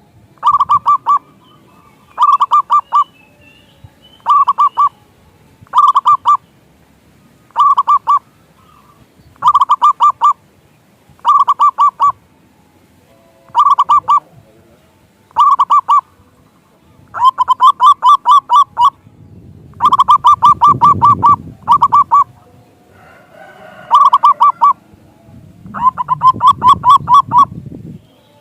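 Zebra doves (perkutut) cooing: short bursts of rapid staccato notes, repeated every one to two seconds, the bursts growing longer and more crowded in the second half. A low rumbling noise sits under some of the later calls.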